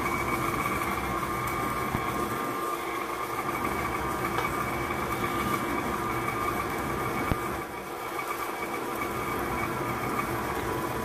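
KitchenAid stand mixer running at low speed, its motor giving a steady whine as the flat beater works through cream cheese and sugar at the start of mixing.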